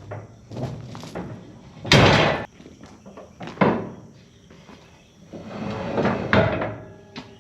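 A series of heavy knocks and thuds, each one sudden with a short ringing tail. The loudest comes about two seconds in.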